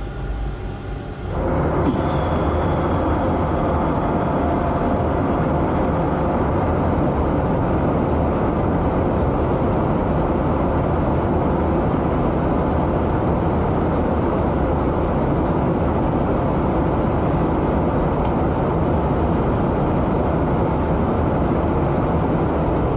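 Steady in-flight cabin noise inside a KC-135R Stratotanker, the even hum of its jet engines and airflow, stepping up a little louder about a second and a half in.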